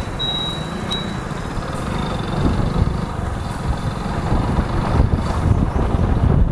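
Motorcycle engine running as the bike rides along, with wind and road rumble on the microphone. A high, evenly repeating beep fades out about a second in.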